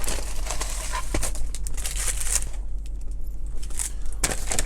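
A paper fast-food bag and food wrappers rustling and crinkling in irregular bursts as the food is pulled out and unpacked.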